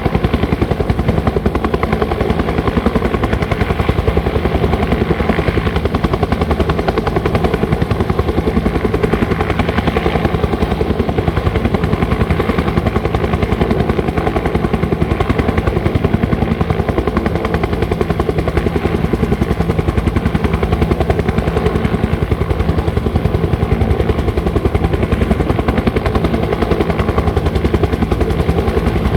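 Bell 205 helicopter's two-blade main rotor and turboshaft engine running steadily, a rapid even beat of the blades over the continuous engine sound.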